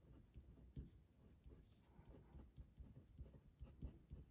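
Faint scratching and tapping of a pen on paper as letters are written in short, irregular strokes.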